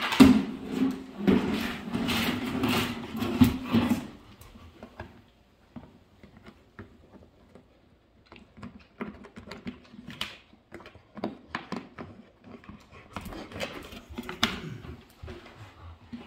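A dog's chewed plastic bucket scraping and knocking on a hardwood floor as the dog carries and pushes it, loud and busy for the first four seconds, then scattered lighter taps and knocks.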